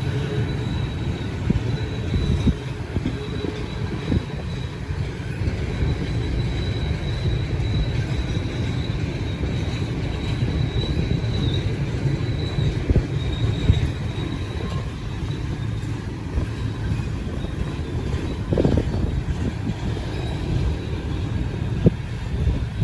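Long freight train of steel-coil cars rolling past: a steady rumble of wheels on rail with a thin high wheel squeal that fades about halfway through, and a few sharp clunks from the cars.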